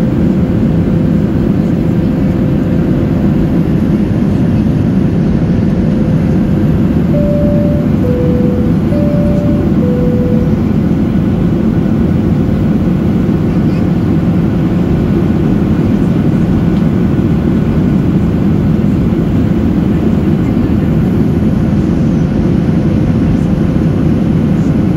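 Steady cabin noise of a Boeing 737-800 in cruise: a dense, low rumble of engines and rushing air. About seven seconds in, a two-note chime sounds twice, high then low each time.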